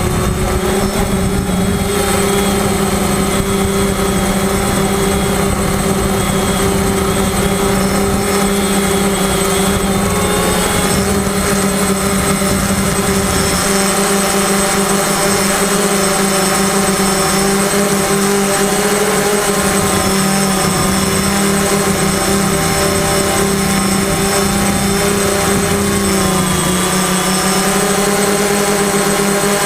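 FPV quadcopter's electric motors and propellers whirring steadily with a high whine, heard from the drone itself; the pitch dips briefly near the end as the throttle eases and then comes back up.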